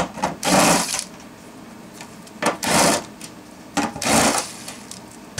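Cordless drill with a 10 mm socket running the nuts off a fuel pump access cover in three short runs, each about half a second long. A sharp click comes just before each run.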